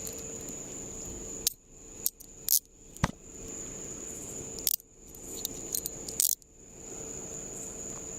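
Metal handcuffs being put on: a handful of sharp metallic clicks and rattles spread over several seconds.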